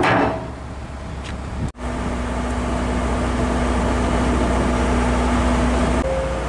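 Heavy diesel engine idling steadily, a low drone with a constant hum above it.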